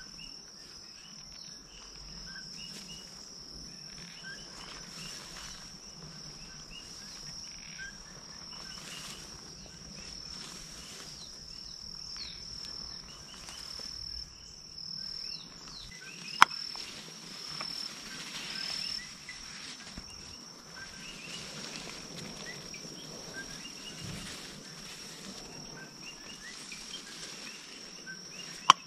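Steady high-pitched insect drone, with scattered short chirps over a faint outdoor hiss. A single sharp click sounds about halfway through, and a few more sharp clicks come at the very end.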